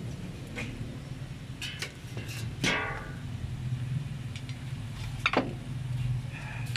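Metal ladle scraping and clinking against a wok as food is stirred: several separate strokes, the loudest about two and a half seconds in, over a steady low hum.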